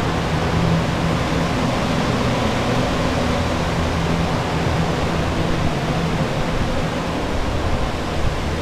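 Water-damage drying equipment running: portable refrigerant dehumidifiers and air movers blowing, a steady rush of air over a low motor hum.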